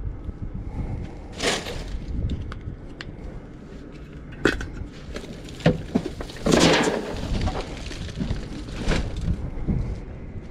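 Rummaging through junk in a dumpster: scattered knocks and clatters of objects being moved, with a louder crunching rustle about six and a half seconds in.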